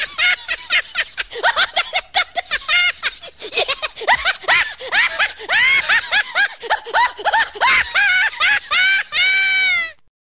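A high-pitched laughing sound effect: quick bursts of laughter, about four or five a second, ending in one long drawn-out note that cuts off suddenly near the end.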